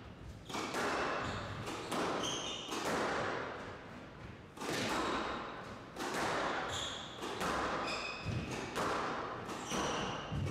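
Squash rally: the ball is struck by rackets and slaps against the court walls every second or two, each hit echoing in the hall, with short high squeaks from players' court shoes on the wooden floor.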